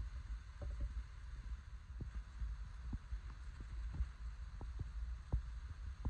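About ten soft, irregular knocks and thumps over a steady low rumble and a faint hiss.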